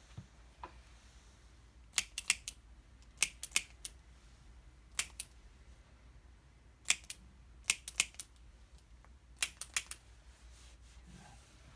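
Chiropractic adjustment of the low back: sharp, light clicks from the adjusting equipment come in quick runs of two to four, about six runs in all, aimed at a rotation felt at the L3 vertebra.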